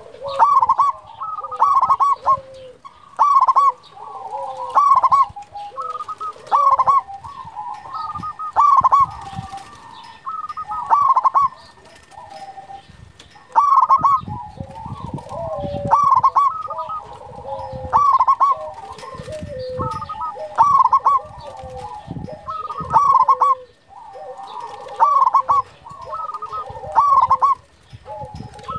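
Zebra dove (perkutut) cooing over and over: quick runs of notes ending in louder coos, a loud phrase about every one to two seconds.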